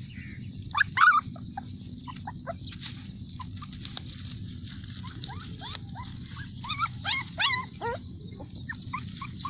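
Bulldog puppies whimpering and squeaking, many short high cries in quick succession, loudest about a second in and again around seven to eight seconds in.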